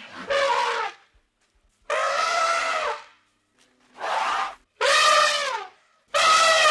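Five separate high, pitched animal calls, each under a second long, with a pitch that dips toward the end, separated by short gaps of silence.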